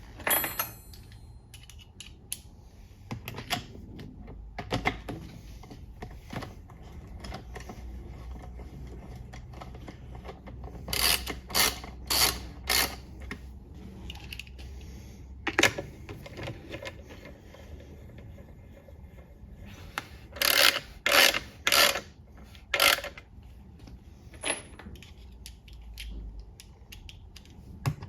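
Hand tools and bolts clinking and clicking against metal while the oil pan is fitted to a ZF 8HP70 automatic transmission. Scattered sharp clicks, with a run of four strong ones about a third of the way in and five more a little past two-thirds.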